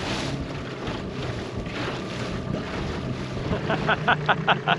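Outboard motor on a small aluminium boat running steadily under way, with wind buffeting the microphone and water rushing along the hull. In the last second comes a quick run of about six short, high-pitched pulses.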